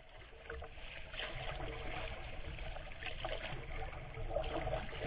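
Lake water splashing and rushing against a paddled kayak's bow, heard close to the hull, fading in over the first second.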